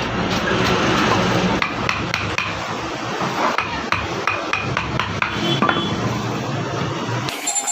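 Wood-carving chisel being struck with a mallet: a run of sharp, irregular knocks, several a second at times.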